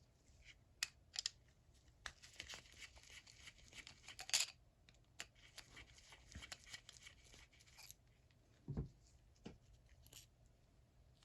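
Small metal clicks and scraping from a vintage 3/8-inch drive box-head ratchet being worked open for disassembly, with a stretch of dense fast clicking in the middle and one dull thump near the end.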